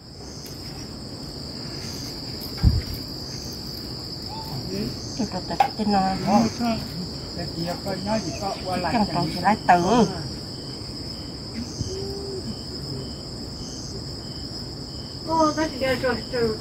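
Night crickets trilling steadily in a continuous high-pitched chorus with a regular pulse. Low voices talk briefly in the middle and again near the end, and there is one dull thump about three seconds in.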